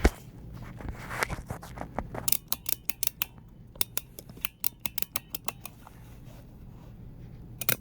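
Plastic Pumbaa toy figure clicking as it is pushed down, a run of sharp clicks several a second that pauses and starts again near the end.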